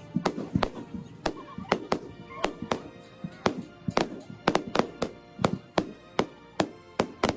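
Fireworks going off in a rapid, uneven string of sharp bangs, two or three a second, over faint background music.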